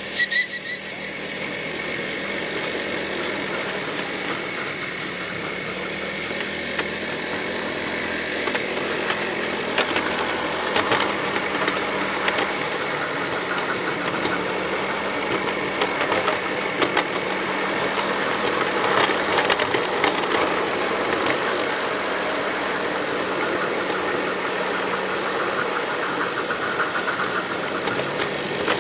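1/8-scale live-steam model of a German Class 23 steam locomotive on 7¼-inch gauge track, running past at close range. Steam exhaust and running-gear rattle go on steadily, with many small clicks of the wheels on the rails.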